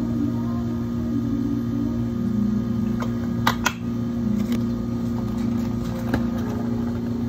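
Steady electrical hum of café equipment throughout. Iced tea pours from a plastic jug over ice at the start. About three and a half seconds in come two sharp plastic knocks as the jug is handled and set down, then a click near six seconds as a plastic dome lid is pressed onto the cup.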